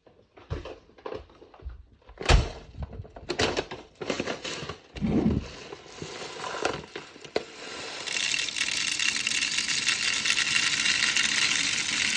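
Sharp plastic clicks and knocks of handling, then from about eight seconds in a steady hissing rattle of airsoft BBs pouring into a 3D-printed drum magazine.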